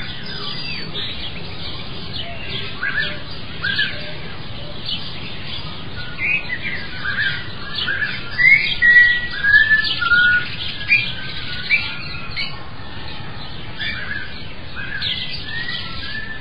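Songbirds chirping and twittering, many short whistled notes over a steady background hiss, busiest around the middle.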